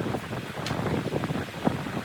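Woodworking noise: a rough, steady rustling or scraping with a few sharp knocks, about one in the first second and one near the end.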